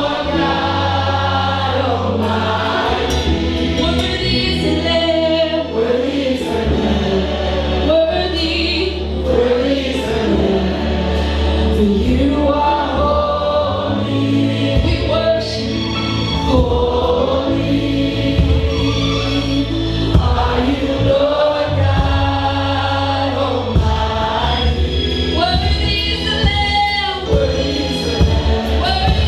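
Gospel choir singing with instrumental backing and a strong, sustained bass line.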